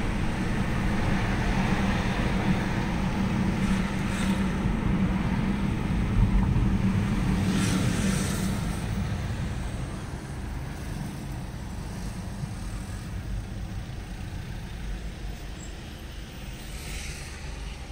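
Road and engine noise heard from inside a moving car's cabin: a steady low rumble that grows quieter about halfway through as the car slows in queuing traffic.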